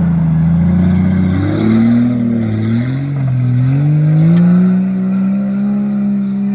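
Jeep engine revving under load while driving through deep mud. The pitch rises and falls unevenly, then climbs about four seconds in and holds high.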